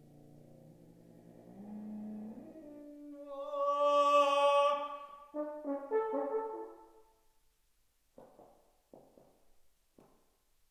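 Solo French horn playing an unaccompanied contemporary piece: soft low held notes climb into a loud, bright high note about four seconds in, then a few short notes that die away about seven seconds in. Three short, soft noises follow near the end.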